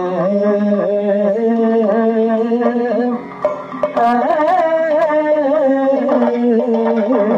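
Male voice singing a Kathakali padam in a Carnatic-style raga, the melody sliding and ornamented over a steady drone. The singing drops out briefly about halfway through, then resumes.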